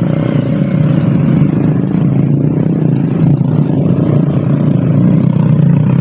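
Small motorcycles' engines running under load as they ride up a slope carrying side baskets full of oil palm fruit bunches.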